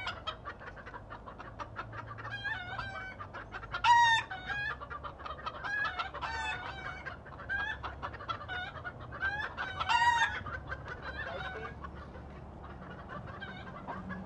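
A flock of chickens clucking and calling, with sharper, louder squawks about four and ten seconds in.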